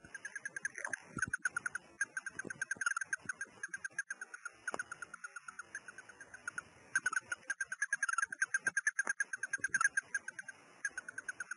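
Russian dwarf hamster making a rapid run of short, squeaky chirping pulses, repeated many times a second, with two short breaks.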